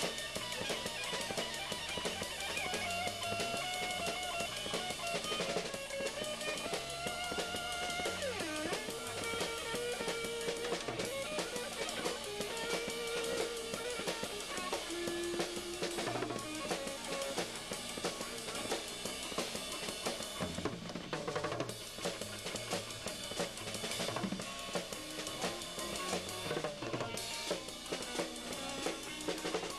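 A live band playing: a full drum kit is struck hard throughout, with kick, snare and cymbals, under guitar. A guitar melody with sliding, bent notes stands out in the first half.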